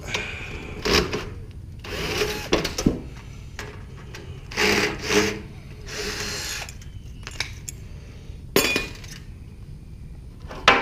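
Cordless drill/driver backing out sheet-metal screws in several short runs, the motor spinning up and winding down each time.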